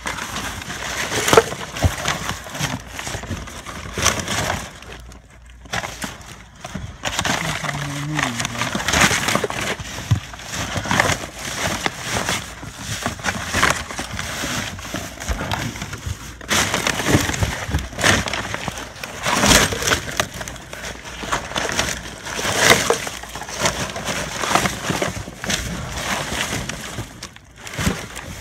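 Trash being rummaged through by hand: plastic bags crinkling, with cardboard and paper shifting and crunching, in a continuous irregular crackle.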